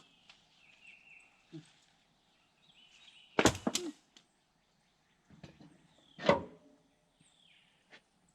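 Sharp knocks: two close together about three and a half seconds in, and one more a little past six seconds, over faint bird chirps.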